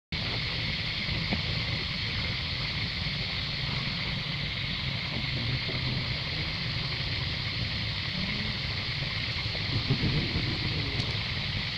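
Outdoor forest ambience: wind rumbling on the microphone under a steady high hiss, with a few faint knocks about ten seconds in.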